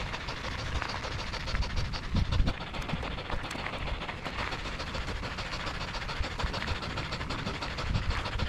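Mountain bike rolling downhill on a loose gravel fire road: tyres crunching over gravel and the bike rattling with many small clicks, over a steady low wind rumble on the mic. A heavier thud comes about two seconds in.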